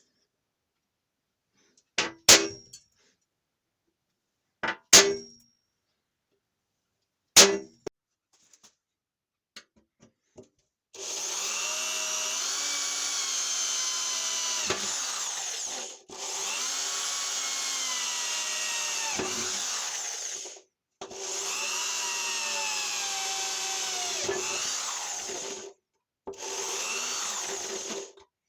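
Three sharp hammer blows on metal about two and a half seconds apart, each ringing briefly. Then, from about eleven seconds in, an electric power tool such as a drill runs in bursts of about five seconds with short stops, its pitch dipping and recovering as it is loaded.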